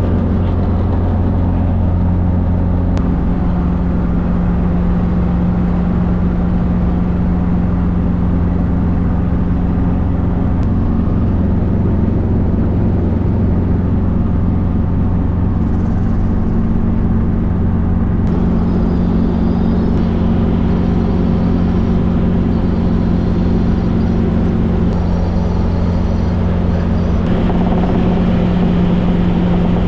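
Helicopter running steadily: a loud, continuous drone of engine and rotor with a low steady hum that does not change.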